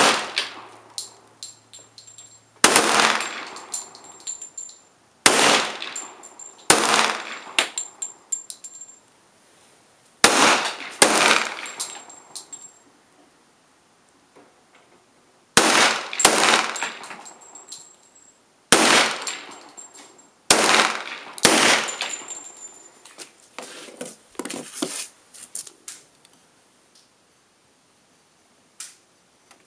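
Rock Island Armory 1911 pistol in .45 ACP firing 200-grain semi-wadcutter target loads in slow fire: about a dozen sharp shots, a second to several seconds apart and sometimes in quick pairs. Each shot has a short echo and a faint metallic ring.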